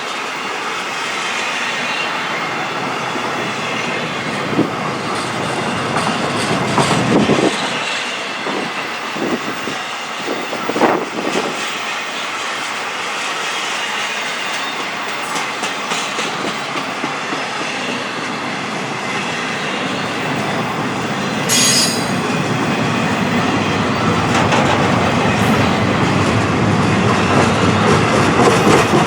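BNSF freight train rolling past: a steady rumble of steel wheels on rail, with sharp clacks over rail joints and a brief high squeal of wheels about three-quarters of the way through.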